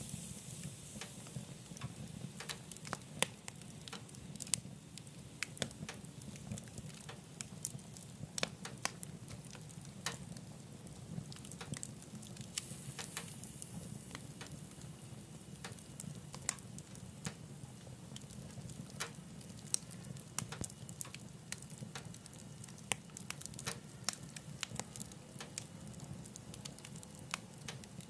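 Wood fire crackling in a wood-burning stove: frequent, irregular sharp pops and snaps over a low, steady rumble.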